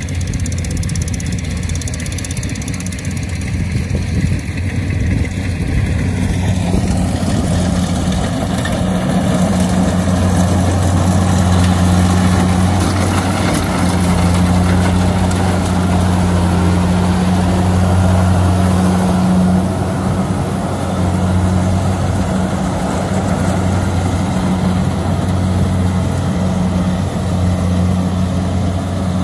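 Engine running steadily with a low hum, growing louder about seven seconds in.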